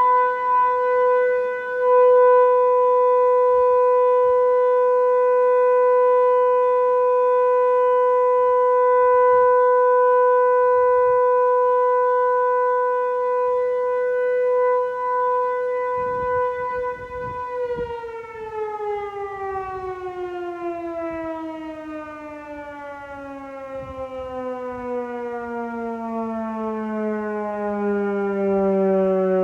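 ASC T-121 electromechanical outdoor warning siren sounding a steady tone for its monthly test, then winding down: a little past halfway the pitch starts sliding steadily lower and keeps falling.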